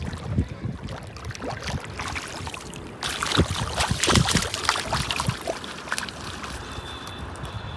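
Water splashing and sloshing, quieter at first and much busier from about three seconds in: a hooked rohu being drawn in through shallow river water.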